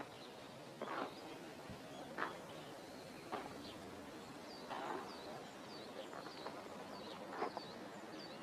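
Small birds chirping in short, high, repeated calls over faint outdoor background noise, with a soft scuffing sound about once a second.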